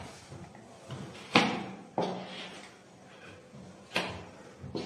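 Three sharp knocks against something hard, about a second and a half, two and four seconds in, the first the loudest.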